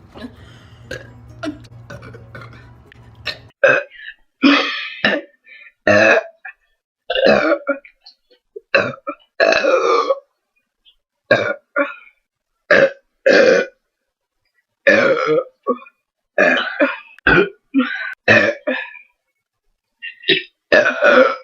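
A girl burping over and over: about twenty short, loud burps with silent gaps between them, starting a few seconds in. Before them there is only a faint low hum with a few clicks.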